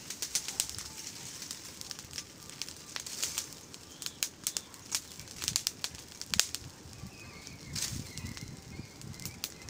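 Brush fire of dry twigs and branches crackling, with frequent irregular sharp pops over a faint hiss.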